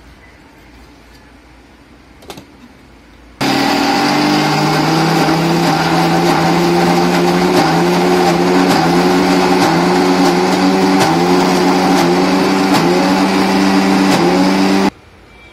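Electric mixer grinder running loaded, grinding soaked urad dal into batter. It starts abruptly about three seconds in, runs steadily with a slight wobble in pitch about twice a second, and cuts off sharply near the end.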